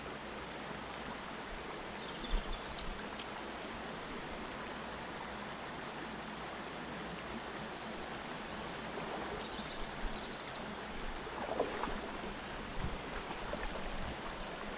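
River water running steadily over a shallow, rippling stretch, with a few brief faint noises on top.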